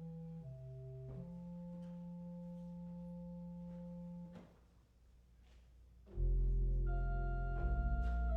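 Organ playing soft, slow sustained chords that stop about four seconds in; after a short pause a much louder chord with deep bass enters about six seconds in.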